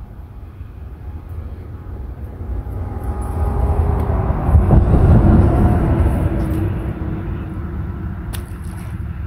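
A passing vehicle's engine: a low rumble swells over a few seconds, peaks midway and fades away again. A single sharp click comes near the end.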